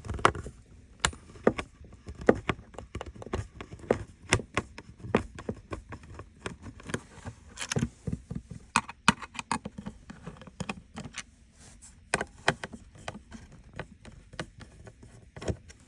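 Screwdriver working the small screws out of a car light-control switch panel: an irregular run of sharp little clicks, ticks and taps as the tool, screws and housing knock together.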